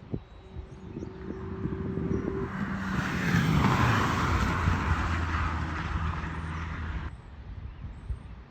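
An engine passing close by: it swells in level, drops in pitch about three and a half seconds in, then cuts off abruptly near the end.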